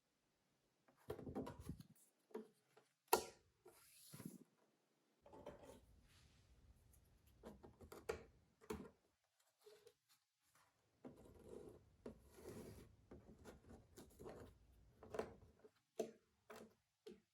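Cardboard jigsaw puzzle pieces being handled, with soft rustling and scraping and a number of sharp clicks. The loudest click comes about three seconds in.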